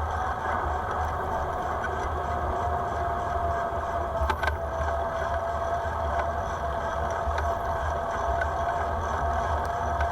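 Wind rumbling on the microphone over road and traffic noise while riding a bicycle, with a thin steady whine and one sharp click about four seconds in.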